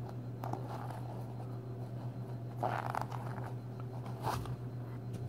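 Foam insert of a Pitbull Rock Beast RC crawler tire being worked out of the rubber tire by hand: soft rubbing and scraping of foam against rubber, with brief rustles about three and four seconds in.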